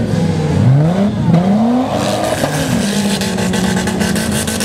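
Race car engines revving on a snow-covered track: the engine note climbs in quick rising sweeps as a car accelerates out of a slide, then holds at a steady pitch.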